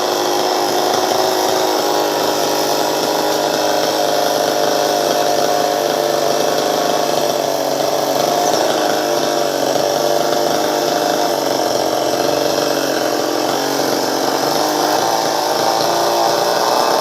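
Chainsaw engine running steadily at a constant high speed, cutting tree limbs during pruning.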